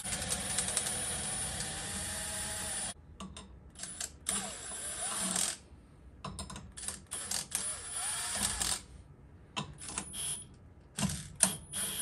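Milwaukee cordless impact wrench running and hammering lug nuts onto a wheel: one run of about three seconds, then a string of short bursts with pauses between them.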